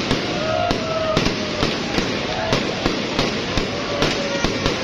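Fireworks bursting in a rapid, irregular string of sharp bangs, about three a second.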